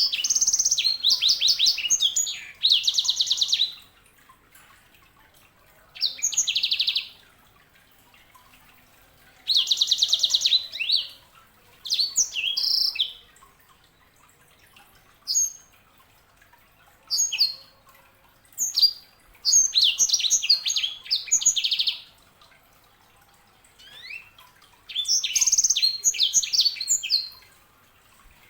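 Yellow-fronted canary (Mozambique canary, known as 'sanger') singing: short bursts of fast, high trills and chirps, separated by pauses of one to two seconds.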